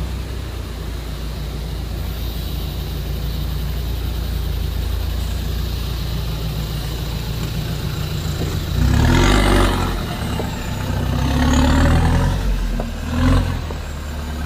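Off-road 4x4 engine running steadily while climbing a rocky track, then revving hard in three surges in the last six seconds as it pulls over large rocks.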